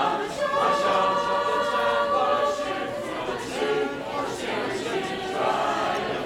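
Large mixed youth choir singing, several voice parts holding long notes together.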